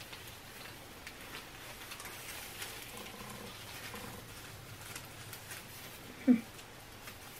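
Tinsel garland rustling and crinkling as it is handled and wrapped around wire wreath frames, in a run of faint, scattered crackles. Near the end comes one short, much louder pitched sound.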